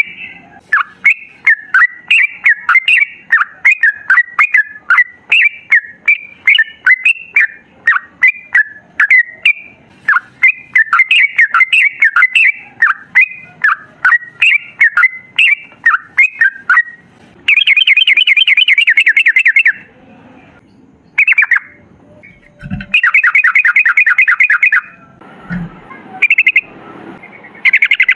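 Yellow-vented bulbul (trucukan) singing: a long string of short, bubbling notes several a second, then from about 17 seconds in, fast rattling trills, the long 'ropel' song. Two brief low thumps come about 23 and 25 seconds in.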